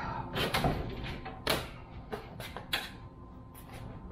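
Irregular metal clanks and knocks, about eight in all, with rustling in between, as hardware is worked loose and pulled out of a golf cart's battery compartment.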